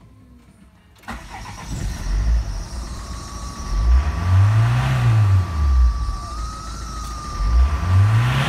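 Citroën Evasion's 2.0 HDi turbodiesel engine (RHW) starting about a second in and settling to idle. It is then revved twice, rising and falling each time, with the second rev peaking near the end. A steady high whine runs under it.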